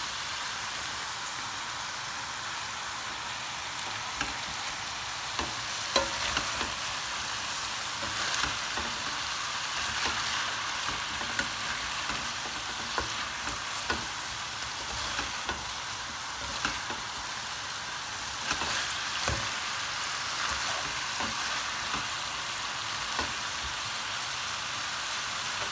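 Lamb and diced cabbage sautéing in a granite-coated pot with a steady sizzle. A spatula scrapes and knocks against the pan every few seconds as the mixture is stirred.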